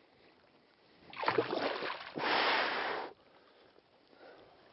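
A hooked fish splashing in the water as it is scooped into a landing net: two bursts of splashing, each about a second long, starting about a second in.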